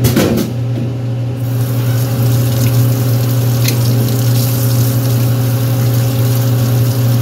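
Steady low machine hum, with an even hiss joining about a second and a half in.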